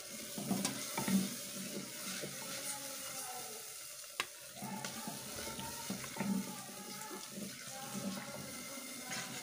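Thick milk and chhena mixture cooking in a steel pan over a low flame: a steady sizzle with soft bubbling pops repeating about every half second, and one sharp click about four seconds in.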